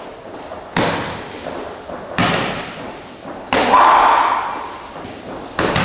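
Gloved punches and kicks landing during sparring: four sharp hits about one and a half seconds apart, each trailing off in the echo of a large hall.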